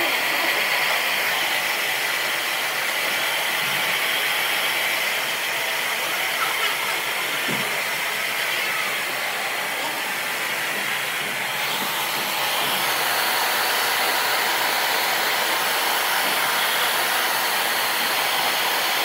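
Hair dryer blowing steadily, its hiss turning brighter about two-thirds of the way through.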